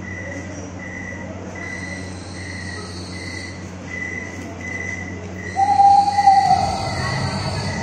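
Horror-act backing track played over a hall PA: a night-time cricket chirp repeating about one and a half times a second over a steady low hum. About five and a half seconds in, a louder, drawn-out howl starts.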